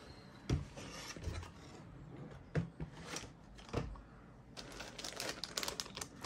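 A cardboard model-kit box being opened: a few knocks and bumps as the box is handled and the lid comes off, then, from about four and a half seconds in, the crinkling of the clear plastic bags holding the sprues as they are lifted and handled.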